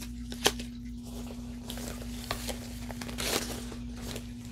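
Hands handling a Coach canvas purse with its wallet and paper card: rustling and crinkling, with a sharp click about half a second in and a louder crinkly stretch past the middle. A steady low hum runs underneath.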